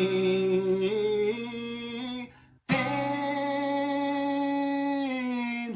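A singer holding long sung notes over guitar, stretching a word of the song line. The sound cuts out briefly about two and a half seconds in, then a second long held note follows.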